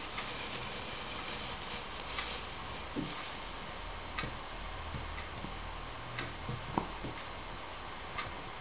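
Short, sharp ticks about every two seconds over a steady background hiss, with a few soft, low knocks in the middle.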